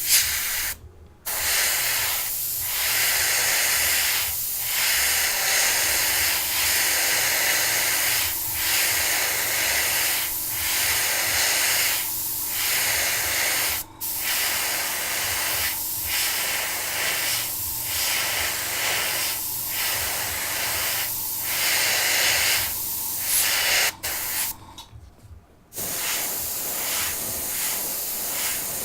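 Airbrush spraying paint: a steady hiss of air with short regular dips about every two seconds as the passes are made. The air cuts off briefly about a second in and again for about a second near the end.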